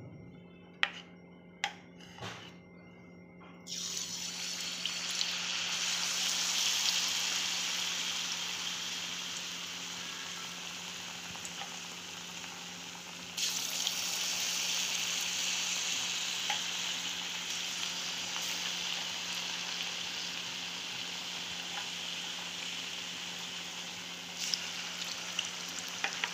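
Battered potato pakoras frying in hot ghee in a kadhai: a steady sizzle that starts suddenly about four seconds in and steps louder about halfway through. A few light clicks come before the sizzle starts.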